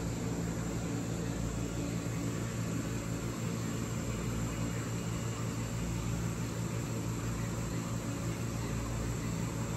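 Steady low machine hum with an even hiss: the drone of an aquarium hall's tank equipment.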